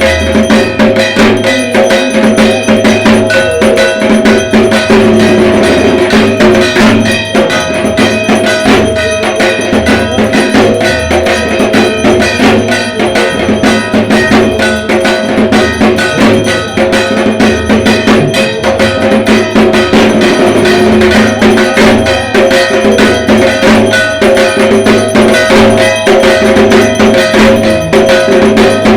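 Dhak, the Bengali barrel drum of Durga Puja, beaten with sticks in a fast, unbroken rhythm, together with a ringing metal percussion instrument.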